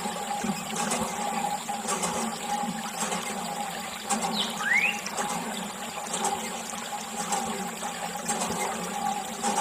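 A thin jet of water sprays and splashes onto small toy vehicles and the wet ground, with a steady hum underneath.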